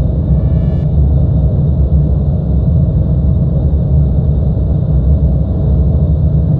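Loud, dense low rumbling noise drone from an experimental electronic soundtrack, steady throughout, with a faint cluster of high tones that fades out about a second in.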